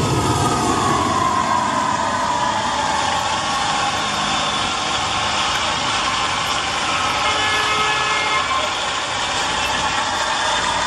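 Steady street traffic noise, with vehicle engines running.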